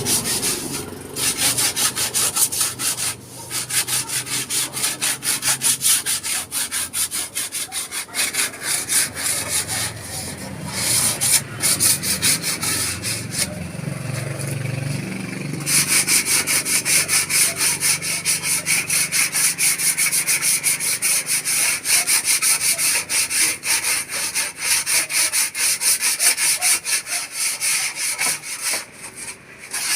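Hand saw cutting wood with quick back-and-forth strokes. It breaks off briefly about three and ten seconds in, and gets louder and brighter about halfway through.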